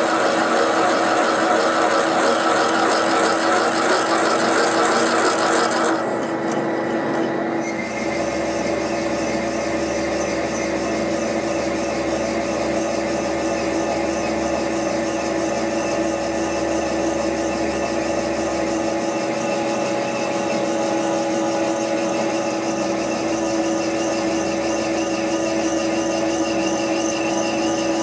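Bridgeport milling machine running, its spindle driving a large twist drill into a steel locomotive crosshead, a steady machine tone with cutting noise over it. About six seconds in the cutting noise briefly drops away, then resumes.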